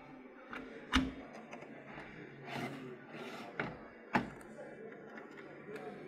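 Door of a front-loading washing machine or tumble dryer swung shut, closing with a sharp thunk about a second in, followed by two lighter knocks a few seconds later.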